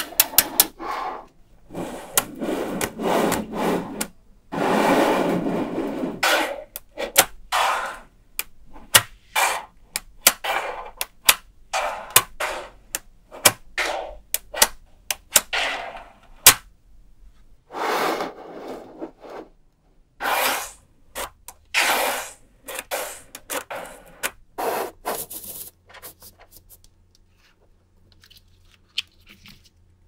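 Small magnetic balls clicking and snapping together, with stretches of rattling, scraping noise as bars of magnetic balls are slid and pressed into place on a tabletop. The clicks thin out to a few faint ticks near the end.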